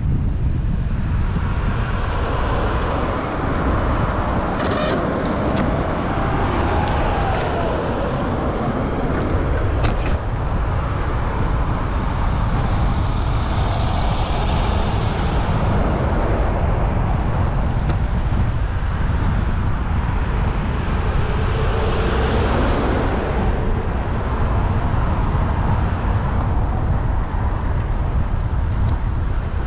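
Road traffic passing beside a moving bicycle, with steady wind rumble on the bike-mounted camera's microphone. Vehicles pass by with a slow rise and fall in pitch a couple of times, and a few sharp clicks come in the first third.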